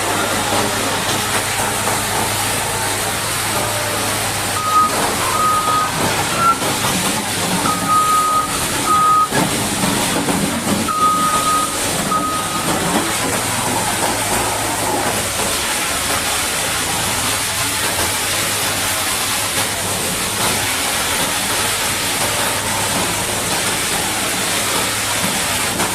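Steady hiss of a high-pressure water jet washing mud off a Caterpillar D8T bulldozer, over a low steady engine hum. From about five to twelve seconds in, a reversing alarm beeps about seven times, the beeps of uneven length.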